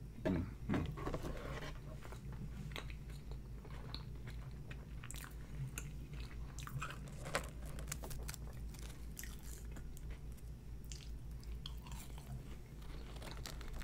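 Close-miked chewing of a mouthful of Big Mac and French fries, with wet mouth clicks and smacks. Two louder bites come about half a second in.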